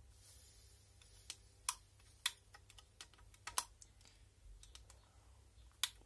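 Light, irregular clicks and taps of a soldering iron tip and small parts against a wall-wart power supply's circuit board while a snubber capacitor is being desoldered.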